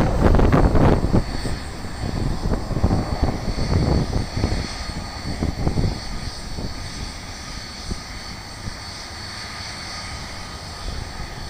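Jet engines of a Boeing 737 airliner passing close overhead on landing. The rumble is loudest in the first second, stays rough for a few seconds, then eases to a steadier, quieter run with a thin high whine as the plane moves off down the runway.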